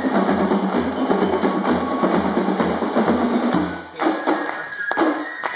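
Spielmannszug (German fife-and-drum corps) playing a march, with a steady bass drum beat and a crowd clapping along in time. About four seconds in, the bass drum drops out while the clapping and high notes carry on.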